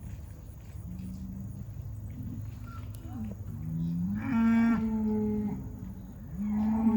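Bulls mooing: a series of long, drawn-out calls. They grow louder, with the strongest about four seconds in and another starting near the end.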